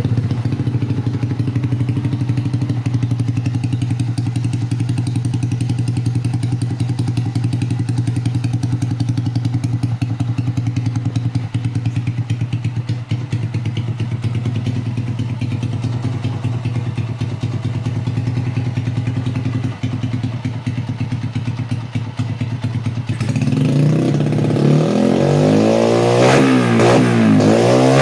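Honda TMX 125 Alpha's single-cylinder four-stroke engine idling steadily through an aftermarket Leo Vince exhaust, then blipped several times from about 23 seconds in, the exhaust note rising and falling with each rev.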